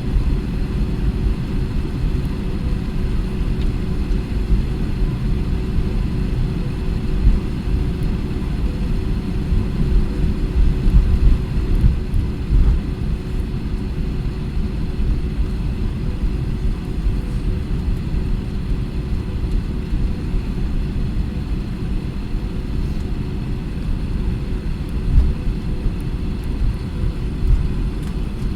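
Cabin noise of an Airbus A320 on the ground before takeoff: a steady low rumble from the running engines and airframe, with a constant hum over it.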